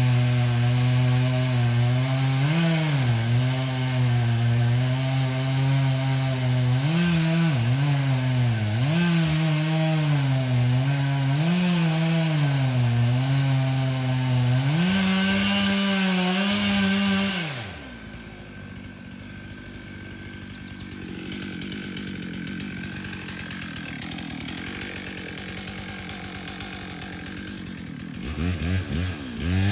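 Two-stroke chainsaw cutting wood, its engine note sagging and recovering again and again under load. It then revs up to a high steady pitch and drops away to a much quieter stretch, before revving up again near the end.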